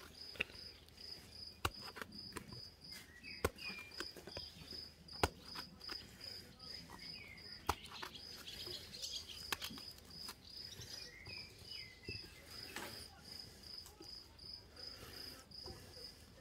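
Faint clicks and soft knocks from a knife cutting chunks of eggplant held over a clay pot, the pieces dropping onto the vegetables, every second or two. A steady high pulsing chirp, about two or three a second, goes on underneath.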